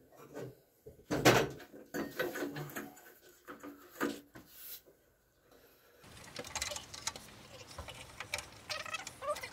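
Metal clanks and handling knocks from a steel riding-mower deck being turned over and worked on, with one loud clank about a second in and quieter knocks and rattles after.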